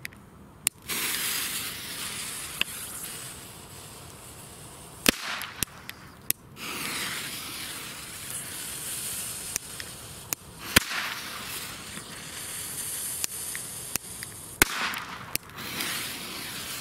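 Small hand-lit firecrackers set off one after another: a hiss of torch lighter and burning fuse, then sharp bangs. The loudest come about five, eleven and fifteen seconds in, with smaller cracks in between.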